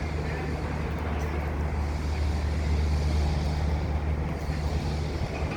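Steady low machinery hum, like a running engine, with wind on the microphone.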